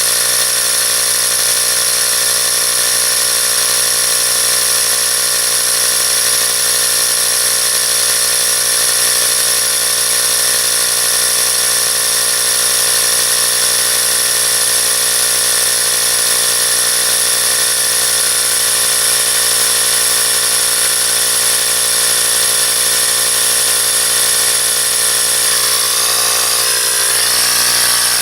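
Ryobi cordless tire inflator's compressor running steadily, pumping air into a low car tire.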